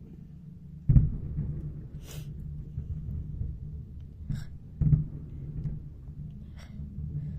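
Fireworks bursting: two loud booms about four seconds apart, with a fainter bang and a brief high hiss between them.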